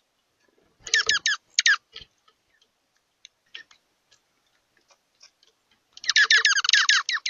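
Bird calls: two bursts of rapid, high-pitched chattering notes, each note falling in pitch, one about a second in and a longer one near the end, with faint scattered ticks between.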